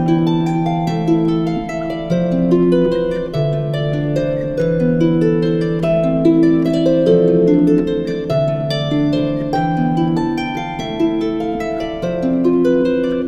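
Background instrumental music: a plucked harp playing a flowing melody over held chords.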